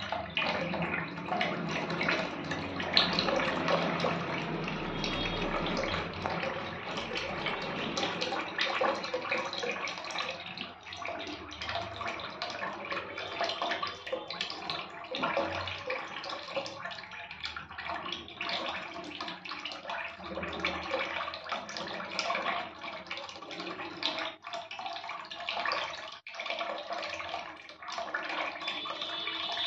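Water sloshing and splashing in a tub with a fish in it: a steady watery noise broken by many small splashes and drips.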